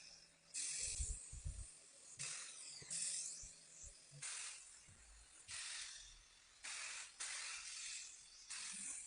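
About eight short hissing bursts of pressurised spray, each lasting under a second, with brief gaps between them.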